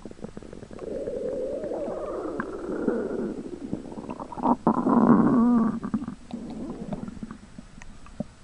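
A pet skunk's stomach growling in long, wavering rumbles, the loudest bout about four and a half seconds in, dying away near the end.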